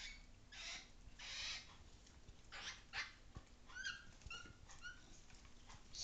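Faint animal sounds: three short raspy hisses in the first three seconds, then a run of about six quick squeaky chirps.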